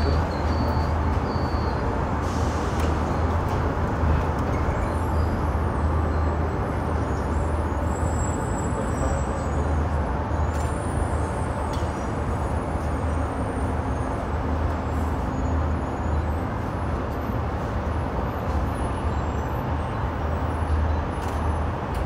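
Steady low rumble and noise of a moving aerial tramway cabin, heard from inside the cabin.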